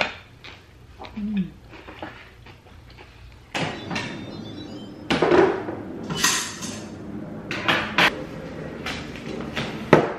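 Kitchen handling sounds starting about three and a half seconds in: a stainless steel cooking pot and its lid knocking and clanking several times on a countertop, along with the rustle of a paper-wrapped package.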